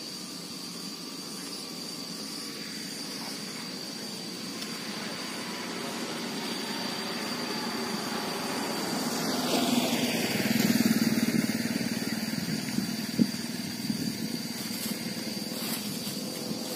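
A motor vehicle going past: its engine noise builds slowly, is loudest about ten to twelve seconds in, then fades. A steady high insect drone runs underneath, with a few light clicks near the end.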